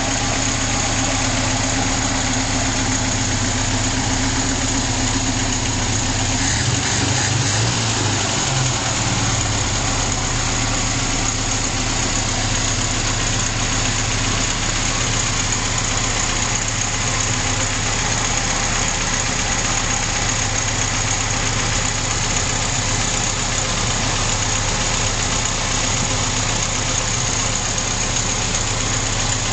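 Moskvich 2140's M412 1.5-litre four-cylinder petrol engine idling steadily, with the pitch rising briefly about seven seconds in.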